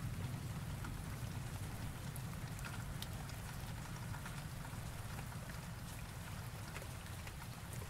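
Steady rain with scattered drops ticking, over a low rumble that slowly fades.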